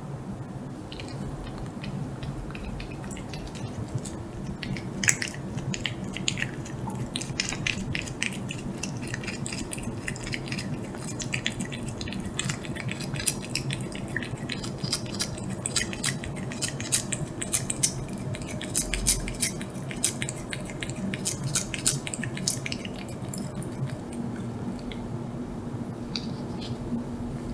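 Cat licking a Churu lickable treat: a long run of quick, wet licking and smacking clicks, which thin out a few seconds before the end.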